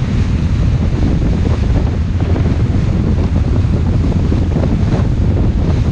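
Heavy wind noise on the microphone with the rush of water from a boat under way on open sea, a steady low noise.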